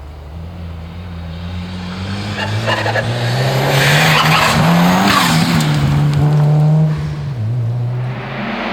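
Rally car at full throttle approaching and sliding past, with tyre and loose-surface noise as it goes by. The engine climbs to its loudest over several seconds, then its note drops suddenly about seven seconds in as the driver lifts or shifts, and it pulls away.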